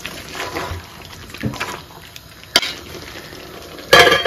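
Thick chicken curry being stirred in a steel pot, with a sharp metal clink about two and a half seconds in. Near the end a metal lid is set down on the pot with a brief ringing clatter.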